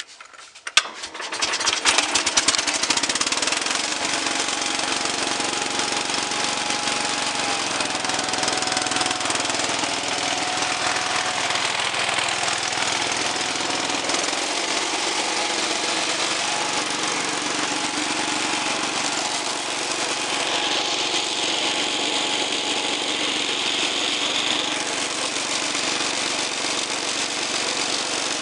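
Cub Cadet 125 garden tractor's single-cylinder Kohler engine cranked by the electric starter, catching within about a second and then running steadily.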